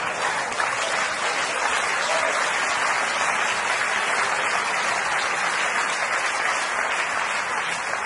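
Theatre audience applauding steadily, a long round of clapping in answer to a joke's punchline.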